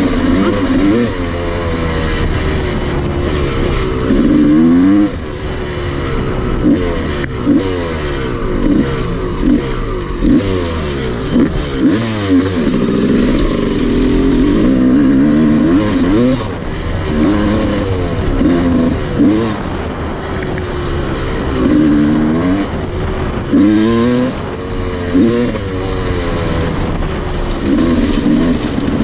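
Dirt bike engine under way, its pitch rising and falling over and over as the throttle is opened and eased off.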